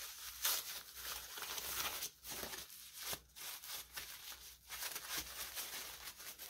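White protective wrap crinkling and rustling as it is pulled off a new rifle handguard by hand, in irregular short bursts.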